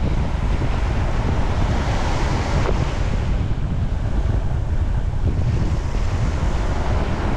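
Wind buffeting the microphone over small waves washing up a sandy beach: a steady rumble and hiss.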